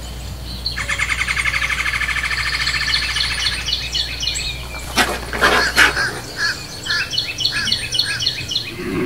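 Songbirds singing: a long rapid trill over the first few seconds, then repeated short chirping notes, with a brief burst of scratchy noise about five seconds in.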